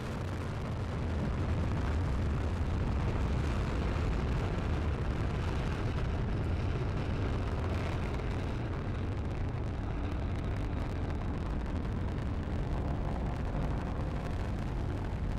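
Falcon 9 rocket's nine Merlin first-stage engines just after liftoff: a steady, loud low rumble with hiss above it, swelling over the first second or two and then holding.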